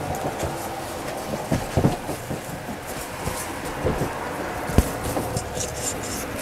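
Heavy upholstery fabric rustling as it is handled and folded on a table, with a few soft knocks, over a steady low background hum.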